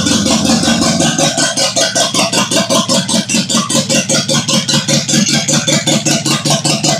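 Toyota 18R-G twin-cam inline-four engine running at idle with a quick, even pulsing beat.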